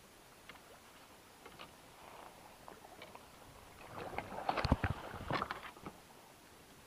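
Knocks, clicks and water splashing around a float tube while a Wels catfish is played on a bent spinning rod. A burst of irregular sharp clicks and knocks starts about four seconds in and lasts some two seconds, over faint water sound.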